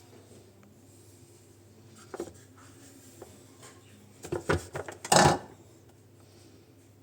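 Handling noises from the opened Hibrew G3 coffee grinder's parts: scattered light clicks, a quick run of sharp clicks a little past four seconds in, then a brief louder rub about five seconds in.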